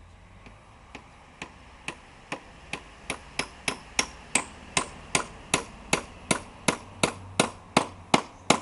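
A child hammering a nail into a wooden shingle board with a claw hammer: an even run of sharp taps, about two or three a second, starting faint and growing steadily louder.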